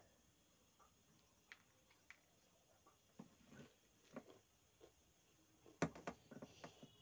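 Near silence with faint sniffs and small clicks as a twist of paper is worked inside the nostril to bring on a sneeze, with one sharper click about six seconds in.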